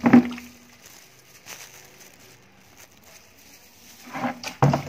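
Water swishing faintly around inside a plastic mug as it is rinsed clean, with two short louder sounds, one at the very start and one near the end.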